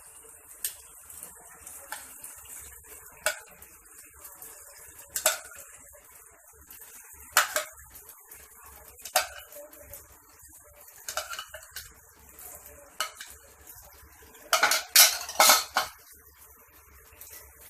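Metal spoon clinking and scraping against a kadhai as boiled macaroni is added to the vegetable masala. The knocks come every couple of seconds, with a quicker, louder run of them near the end.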